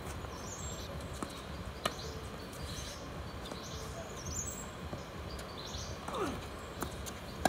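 Tennis ball struck by rackets and bouncing on a hard court: a few sharp, separate pops over steady outdoor background noise.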